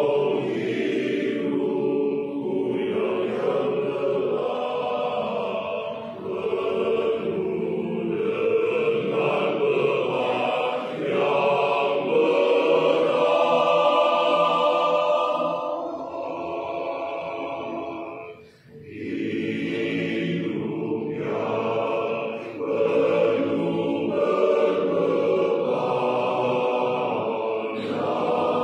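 Men's choir singing a hymn in long held phrases, with one brief break about two-thirds of the way through.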